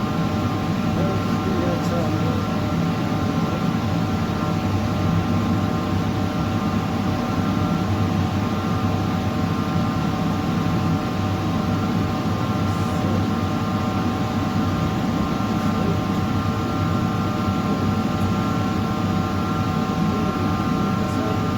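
Stainless steel stick welding: the steady, grainy crackle of the arc, with an even electrical hum from the welding machine.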